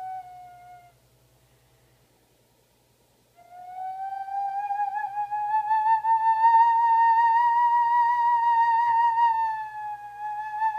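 Iwabue, a Japanese stone whistle, blown in long, pure whistling notes. One note slides slightly down and stops about a second in; after a pause of about two and a half seconds a new note starts low, rises slowly with a slight waver, and sinks a little near the end.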